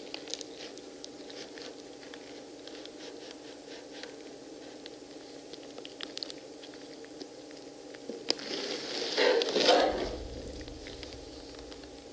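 Knives cutting and prying into pomegranates: a run of small wet clicks and crackles from the rind and seeds, with a louder tearing burst about nine seconds in.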